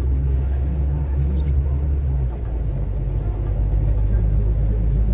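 Car driving: a steady low rumble of engine and road noise, its pitch shifting about two seconds in.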